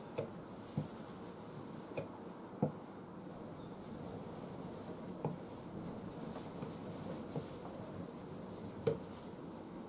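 A knife is stropped on a leather strop, then a thin steel blade is scraped along the strop to clear spent polishing paste. Soft strokes carry about six light metallic ticks, two of them sharper.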